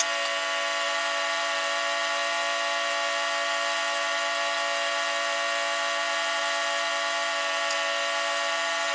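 Sawmill running at a steady, unchanging pitch while cutting through a log.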